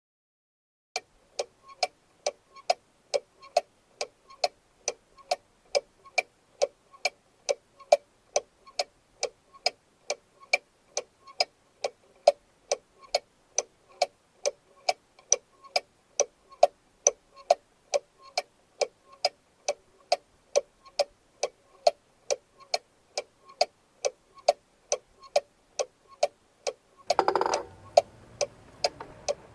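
Cuckoo clock ticking steadily, a little over two ticks a second in an even tick-tock. Near the end a louder noisy sound sets in over the ticking.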